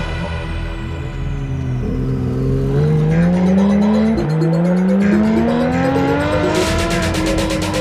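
Porsche 911 GT3 RS's naturally aspirated flat-six, fitted with a titanium exhaust, accelerating hard. The note climbs in pitch, drops at an upshift about four seconds in, then climbs again before easing off near the end.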